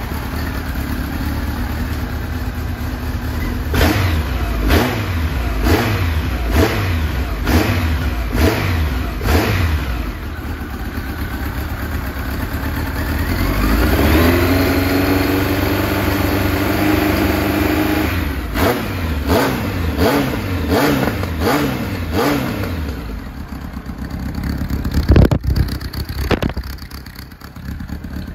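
Honda CB1300 Super Four (SC40) inline-four running through a LAZE 4-2-1 full exhaust, with the throttle blipped repeatedly. There is a string of quick revs about one a second, then a rev that rises and is held for several seconds, then more quick blips. Two sharp knocks come near the end.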